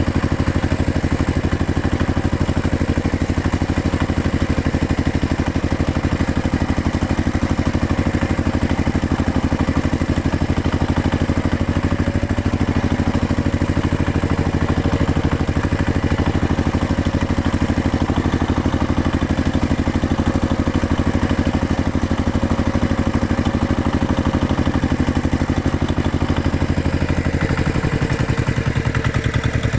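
Heavy equipment engine running steadily with a fast, even pulse, its sound changing slightly near the end.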